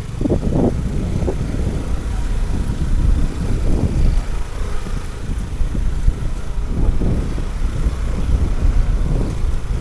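Motorcycle running under way on a rough road, with wind buffeting the microphone.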